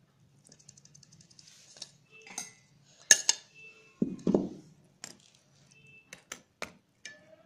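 A steel spoon clinking and scraping against a shallow pan while spreading a milk and khoya mixture over soaked bread slices: scattered sharp clinks, some ringing briefly, with a quick run of three near the end.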